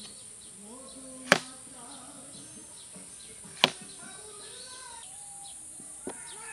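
A blade chopping into a fresh bamboo shoot: two sharp strikes about two seconds apart, then a lighter one near the end. Chickens cluck in between.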